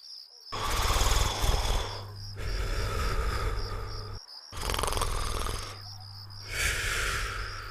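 Cartoon snoring: two slow breaths, each a loud rasping snore on the intake followed by a softer outbreath, with a brief pause between them.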